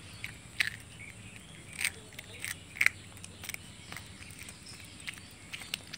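Puppy chewing mutton: a run of short, irregular crunches and smacks, some a second or more apart, others closer together.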